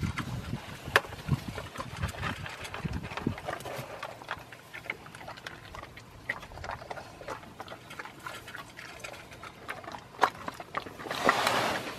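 A dog eating dry kibble from a plastic bowl: many short, irregular crunches and clicks as it chews. There is a louder noisy scuffle lasting about a second near the end.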